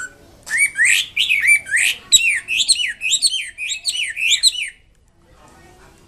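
Chinese hwamei (melodious laughingthrush) singing a loud, fast string of whistled notes that swoop down and up, about two to three a second, breaking off about a second before the end.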